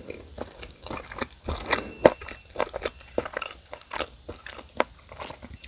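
Close-up crunching of someone biting into and chewing crispy fried chicken (Goobne Gochu Basasak), many irregular crisp crunches, the loudest about two seconds in.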